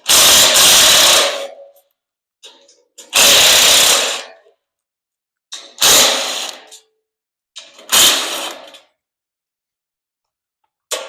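Power tool fitted with a 10 mm socket running in four short bursts, each about a second long, undoing the bolts of a steel shipping crate. The bursts are loud.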